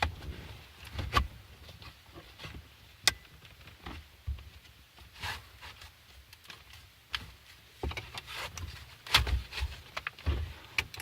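Scattered clicks, knocks and rustles of hands working a car's shift knob and plastic shift boot loose from the gear lever. The sharpest clicks come about a second in, about three seconds in, and in a cluster around nine seconds.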